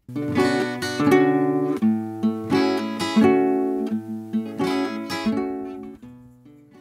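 Folk music on a strummed acoustic guitar: a run of chords that starts abruptly and fades out near the end.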